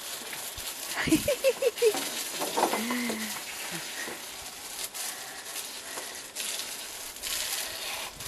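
Garden hose spraying water onto dishwasher parts, rinsing off degreaser: a steady hiss of spray with water pattering.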